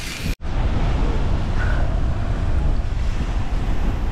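Wind buffeting the microphone, a steady low rumble, after a brief dropout shortly after the start.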